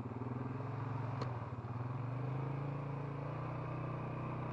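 Four-wheeler's engine pulling away from a slow, pulsing putter into a steady run, its pitch stepping up a little about three seconds in. A single sharp click about a second in.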